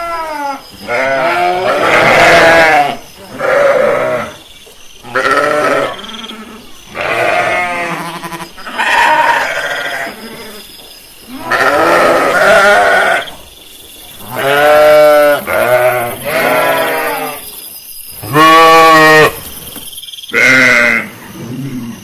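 Sheep bleating over and over: about a dozen separate, wavering calls of differing pitch, with short pauses between them.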